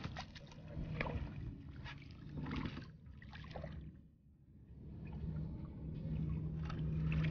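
Water splashing and sloshing around a small fishing boat as a hooked crappie is brought to the landing net, with scattered clicks and knocks in the first few seconds. From about five seconds in a low steady hum joins and grows louder.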